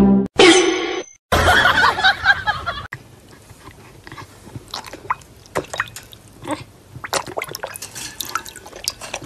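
A dog lapping water from a bowl: soft, irregular wet clicks and small splashes. The first few seconds hold a louder stretch of mixed noise.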